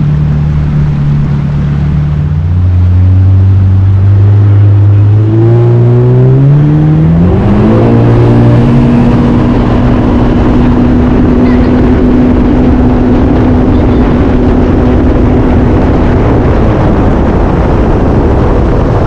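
Yamaha FX personal watercraft's four-stroke engine accelerating, its pitch climbing over about five seconds as the throttle opens. It then runs steady at speed and eases off slightly near the end.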